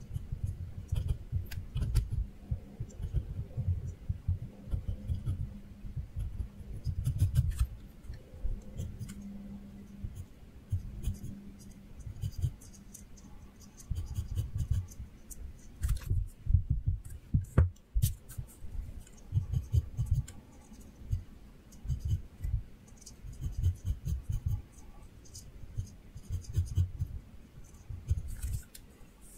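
Pencil sketching on paper: a quick, irregular run of short scratching strokes, each with a low thud.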